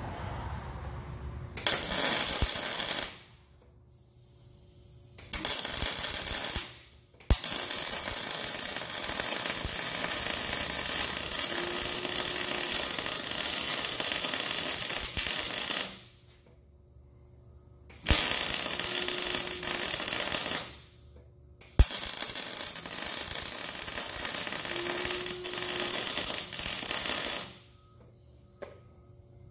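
Electric arc welding: the arc crackles and hisses in five runs that start and stop abruptly, the longest about eight seconds, as weld is built up on a rig elevator's collar.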